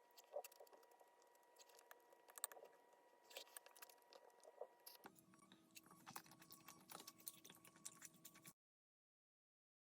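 Faint eating sounds: scattered small clicks and smacks of chewing. They break off at an edit about five seconds in, carry on, then drop to dead silence for the last second or so.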